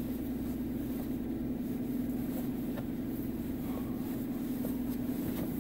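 Steady hum of a running car heard inside its cabin, with soft rustling and a few faint ticks as a fleece blanket is folded.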